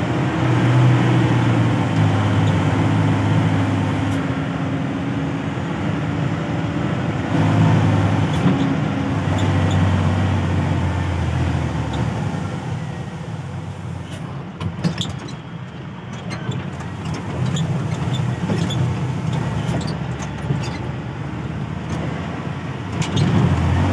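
A vehicle driving over a rough gravel and dirt road, heard from inside: a low engine drone that swells and fades over steady tyre and road noise, with scattered clicks and knocks from the jolting over stones.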